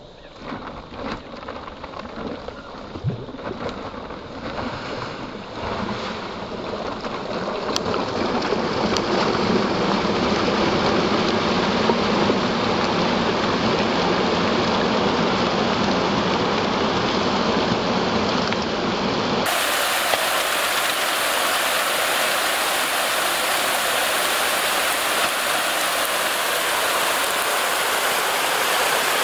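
A mass of catfish thrashing and splashing at the pond surface in a feeding frenzy as feed pellets are poured in. It builds from scattered splashes to a steady, loud churning of water within about ten seconds, and turns abruptly to a brighter hiss about two-thirds of the way through.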